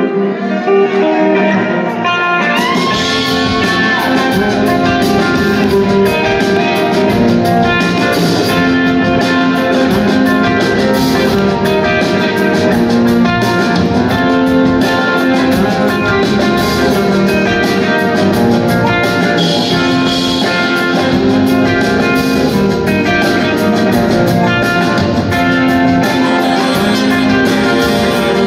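Live blues-rock band playing loud in a large hall: two electric guitars over a drum kit and percussion. The drums and cymbals fill in about two seconds in.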